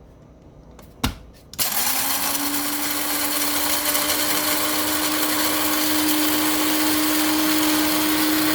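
KitchenAid BCG111OB blade coffee grinder chopping a load of whole coffee beans. After a click about a second in, the motor starts about a second and a half in, rises briefly in pitch and settles into a loud, steady whirring hum.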